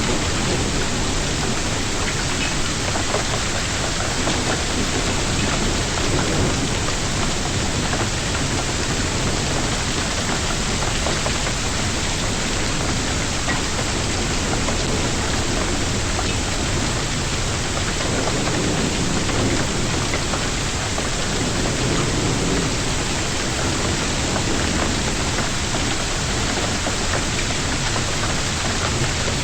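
Hailstorm: hail and heavy rain pelting down in a steady, dense patter of countless small impacts.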